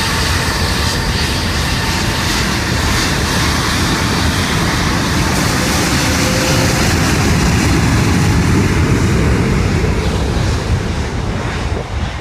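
Engines of a large Airbus aircraft flying a display pass: a loud, steady rumble with a whine falling in pitch at the start, growing to its loudest about two thirds through and easing off near the end.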